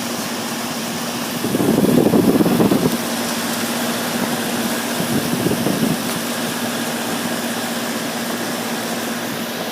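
Bryant central air conditioner's outdoor condensing unit running, with its Bristol compressor humming steadily under the rush of its GE condenser fan. A louder rumble rises between about one and a half and three seconds in, and a smaller one comes about five seconds in.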